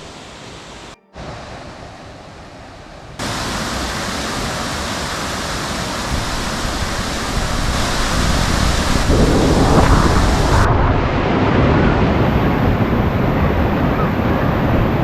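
Dawson Falls, an 18-metre waterfall, rushing steadily. The rushing jumps much louder at a cut about three seconds in and swells further midway.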